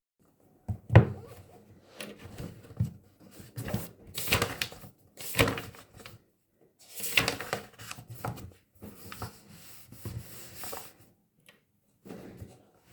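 Irregular handling noises: rustling and light knocks of small objects being moved about, coming in short bursts several times a second apart.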